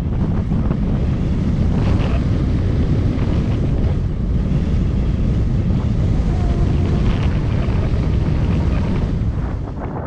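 Heavy wind buffeting the microphone of a wing-mounted camera on a hang glider during the takeoff run and first seconds of flight: a steady, loud, deep rumble of rushing air.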